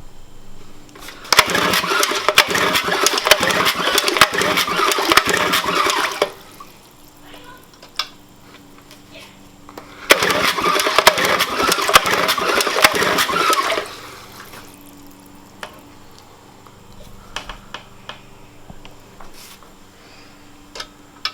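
Old 3 HP Sea-Bee outboard motor being cranked to start, giving two bursts of rapid, irregular clattering, the first about five seconds long and the second about four, with quieter handling sounds between. It does not keep running, which the owner puts down to fuel not reaching a clogged carburetor jet.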